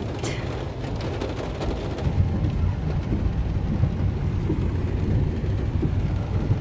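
Heavy rain drumming on a car's roof and windscreen, heard from inside the cabin over the car's steady low rumble.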